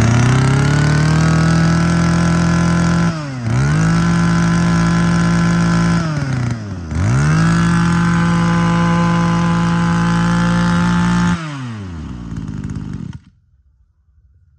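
Mitsubishi TB26 26cc two-stroke brush cutter engine revved up to high speed and held there, with two brief dips in pitch about three and six and a half seconds in. The throttle is then released: the engine winds down and stops about thirteen seconds in.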